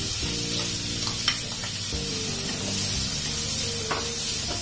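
Chopped onions sizzling as they fry in hot oil and butter in a metal kadhai, stirred with a spatula, with a couple of light knocks of the spatula against the pan.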